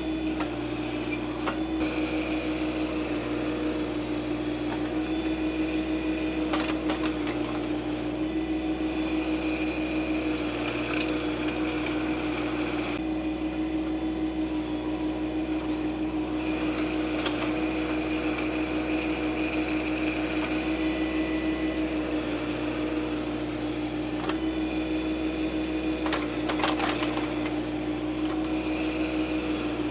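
John Deere 2025R compact tractor's diesel engine running steadily while it works the backhoe, with a higher tone coming and going a few times.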